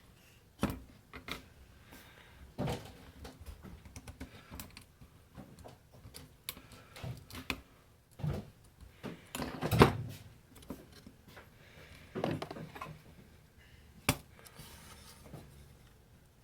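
Irregular clicks, taps and knocks of tools and parts being handled during repair work on a fridge control board, the loudest knock about ten seconds in.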